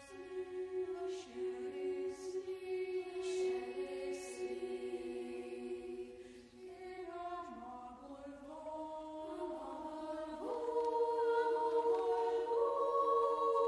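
Boys' choir singing slow, held chords that move in steps, with crisp sung 's' sounds; the singing swells louder about ten seconds in.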